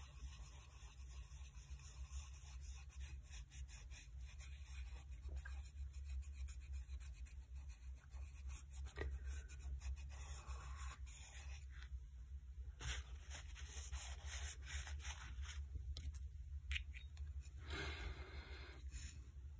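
Faint scratching and rubbing of a small hand tool worked along the lacquered crack of a glazed ceramic bowl, in many short irregular strokes, over a steady low hum.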